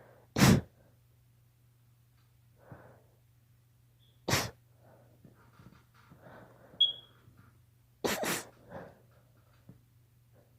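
A girl's allergy sneezes: three sharp sneezes roughly four seconds apart, the last a quick double. Quieter breaths come between them, and a brief high squeak comes just before the last sneeze.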